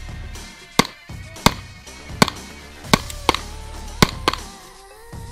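Semi-automatic pistol fired in a string of single shots, about one every three-quarters of a second, five strong shots with a couple of weaker reports between them.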